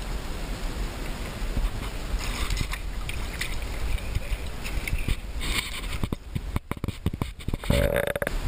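Steady low rumble of wind on the microphone over flowing river water, with a quick run of clicks and knocks from handling about six to seven seconds in.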